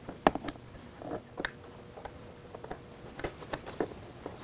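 Scattered sharp clicks and light knocks of plastic as a wiring connector is handled and a plastic motorcycle dashboard panel is fitted, the sharpest click about a quarter second in and several more near the end, over a faint steady hum.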